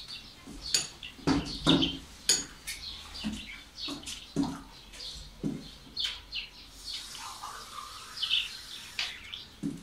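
Metal spoons clinking and scraping in small porcelain bowls, with the wet mouth sounds of eating stewed fruit in syrup: an irregular string of short clicks and smacks.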